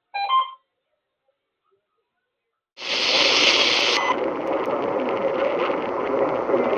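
Radio static: after a couple of seconds of silence, a radio receiver's hiss cuts in suddenly about three seconds in, harsh and bright for the first second, then goes on as a steady rushing hiss with no clear tone.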